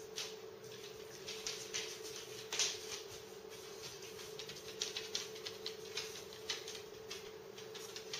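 A dog's claws clicking and tapping irregularly on a hard kitchen floor as it moves about and rears up against the counter. A steady low appliance hum runs underneath.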